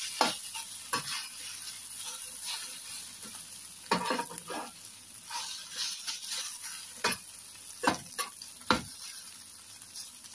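Potato strips and egg sizzling steadily in a shallow metal pan, with a metal spatula scraping and knocking against the pan several times as the food is turned.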